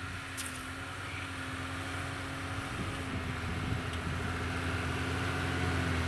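Truck engine running steadily at low speed, a constant low hum that slowly grows louder.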